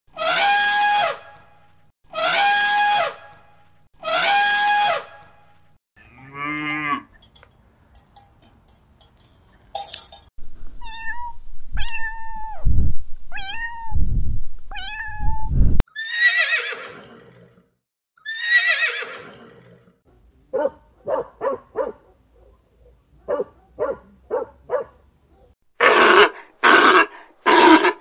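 A run of different animal calls: three identical high trumpet-like calls from an elephant, then cats meowing five times in short falling calls over low thumps, then short grunts, and three loud barks from a sea lion near the end.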